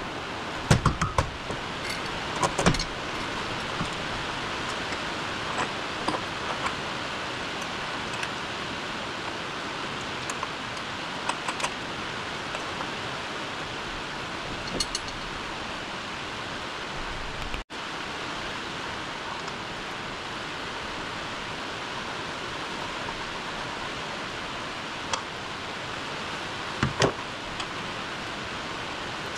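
Scattered metallic clinks and knocks of hand tools and parts during work on an engine mount, over a steady background hiss. The clinks cluster about a second in and again near the end.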